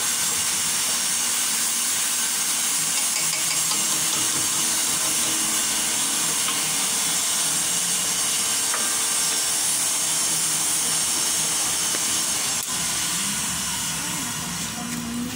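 Steady sizzling hiss of food sautéing in hot oil in a pan. A sharp click comes near the end, after which the sizzle starts to fade.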